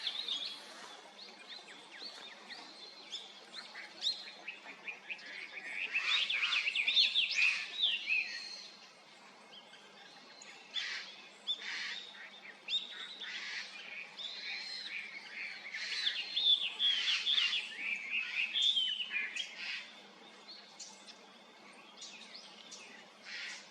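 Japanese grosbeaks calling: many short chirps and quick sweeping notes, busiest about six seconds in and again in the second half.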